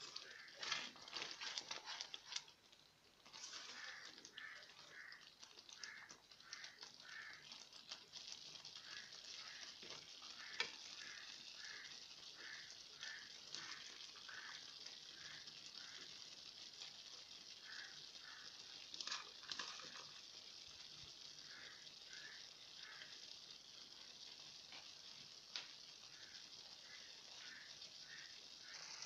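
Thick moong dal simmering in a pan, a faint steady sizzle with runs of soft bubbling pops. A ladle stirs it in the first few seconds, and there are a few sharp clicks along the way.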